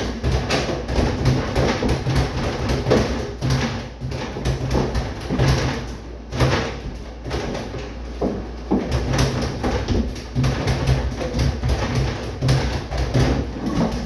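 Music playing over a quick, irregular patter of 16 oz boxing gloves hitting a double-end ball and punching bags.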